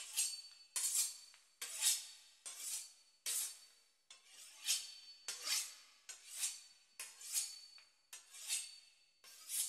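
A knife sawing through the crisp pastry crust of a beef Wellington: a quiet, dry scraping stroke roughly once a second, about a dozen in all.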